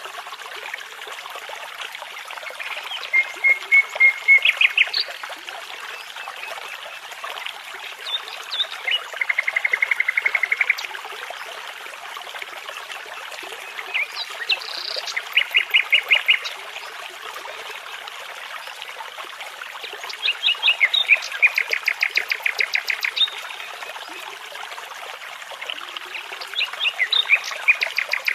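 A nightingale singing over a steadily babbling brook. Five short phrases of rapidly repeated notes come every five seconds or so, with pauses between them.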